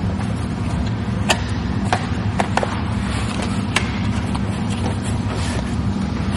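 A few sharp clicks and crackles of adhesive vinyl being cut and handled around a tie-down hook, over a steady low mechanical hum.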